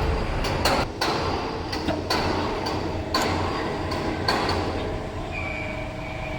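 Heavy fabrication workshop noise: irregular metallic knocks and clanks over a steady din, with a steady machine whine coming in about two seconds in.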